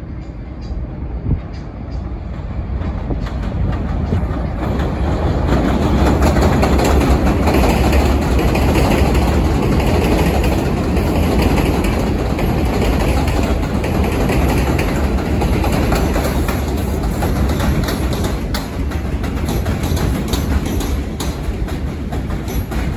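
New York City subway train of R62A cars running on the elevated steel structure beside the platform: a steady rumble and rail noise that grows louder over the first few seconds and stays loud, with sharp wheel clicks over the rail joints in the last few seconds.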